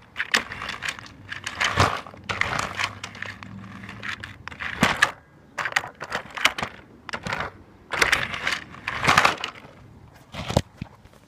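Irregular rustling, scraping and knocking of a phone being handled, with its microphone rubbed and bumped, plus several sharp knocks.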